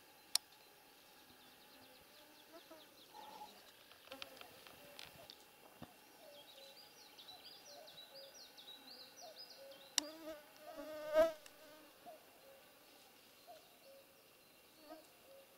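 Mosquitoes whining around the microphone, faint and steady, with one buzzing close about eleven seconds in, the loudest moment. A couple of sharp clicks and a short run of faint bird chirps come partway through.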